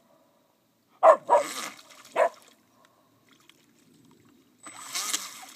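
Whippet barking twice, about a second apart, at a radio-controlled model boat. Near the end the boat's small motor starts up with a whirr and a hiss of churned water.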